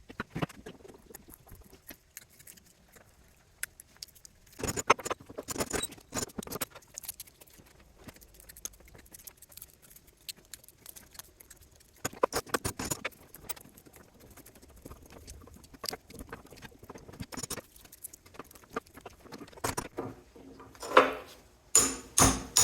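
A small fan motor being taken apart by hand to strip out its copper: scattered clicks, scrapes and metallic rattles in bursts, busiest about five seconds in, around twelve seconds in, and near the end.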